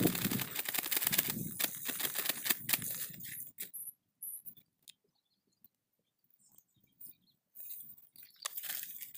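Crinkling and crunching from handling a black plastic nursery bag and dry leaf litter while a tree seedling is set into its hole by hand, for about three and a half seconds. Then near quiet with a few faint rustles, and crumbly rustling again near the end as soil is pressed around the seedling.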